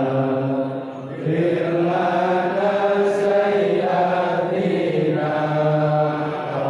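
Islamic devotional chanting by voices holding long, drawn-out notes, with a short pause for breath about a second in.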